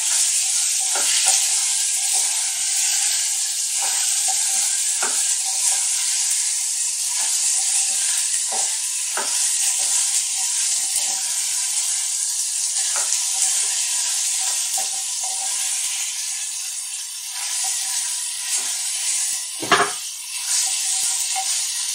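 Chopped okra frying in oil in a clay pot, with a steady sizzle, stirred with a wooden spatula that scrapes and knocks against the pot. One louder knock comes near the end.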